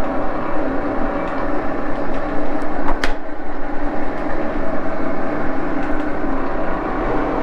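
Baby Axelson engine lathe running, its spindle at about 849 RPM: a steady mechanical hum from the one-speed motor and gear headstock with several steady tones in it. A single sharp click about three seconds in.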